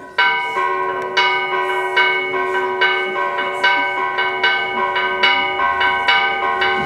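A church bell in a stone belfry, struck by hand in a rapid peal of about two to three strokes a second, each stroke ringing on into the next. The ringing jumps in loud a moment after the start.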